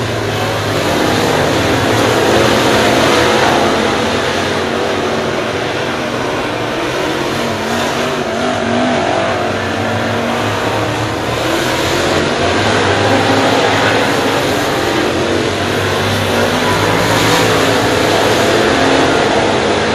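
A pack of dirt late model race cars running at racing speed around a dirt oval. Their V8 engines make a loud, continuous drone that swells several times as cars pass the near turn.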